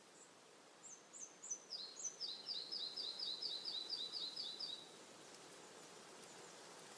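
A small songbird singing: a few high, falling notes about a second in, then a quick trill of about five notes a second that stops near the middle, over a steady faint outdoor hiss.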